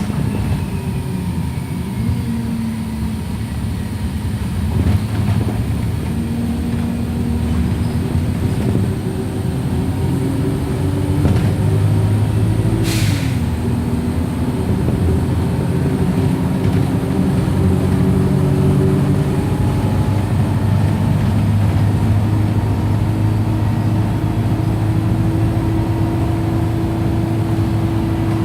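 Wright StreetLite single-deck bus on the move, its diesel engine running steadily with the engine note shifting in pitch. About halfway through comes one short, sharp hiss of air: the bus's 'sneeze', the air system blowing off.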